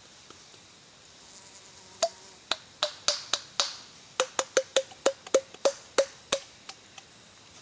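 White-lipped peccaries clacking their teeth: a run of about eighteen sharp clacks, starting about two seconds in and stopping about a second before the end, a warning display by peccaries facing an intruder. A steady high insect hiss runs underneath.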